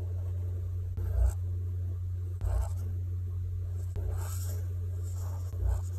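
Felt-tip marker drawing on paper in about five short scratchy strokes, over a steady low hum.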